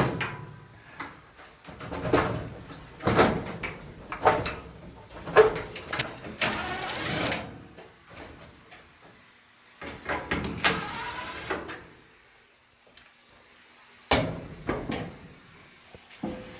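Knocks and clatter of dryer parts being handled inside an opened clothes dryer, with two longer scraping or sliding noises about six and ten seconds in.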